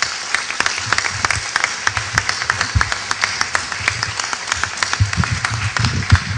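Audience and panel applauding: dense, steady clapping, with a few low knocks near the end.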